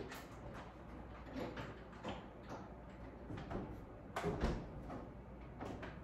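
Scattered faint knocks, clicks and scrapes of hands working at an over-the-range microwave and the cabinet above it, with a small cluster of knocks a little past the middle.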